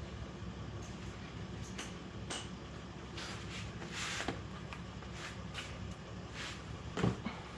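Short scraping and rustling handling sounds as a little more motor oil is topped up from a bottle through a funnel into the engine, with a single knock about seven seconds in, over a steady low hum.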